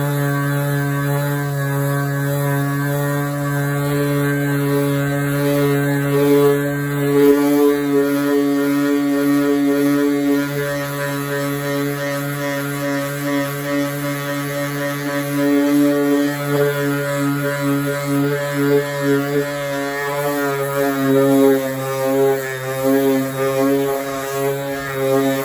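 Power sander running steadily, sanding peeling clear coat off a car body panel with coarse-grit paper.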